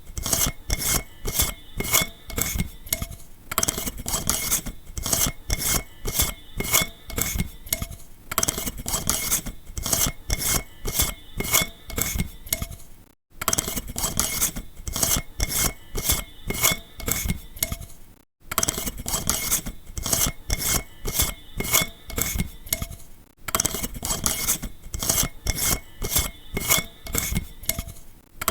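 An old incandescent light bulb being twisted in its socket: a quick run of short gritty scrapes and clicks from the base turning in the threads, with a faint ringing tone over them. The run stops briefly and starts again several times.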